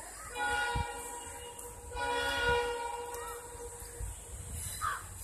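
WDM3D diesel locomotive's air horn sounding two held blasts, the second a little longer than the first. A crow caws near the end.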